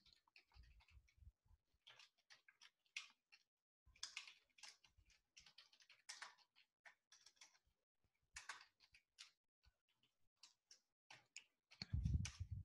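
Faint computer keyboard clicks as code is typed, irregular keystrokes a few a second, with a louder low thump near the end.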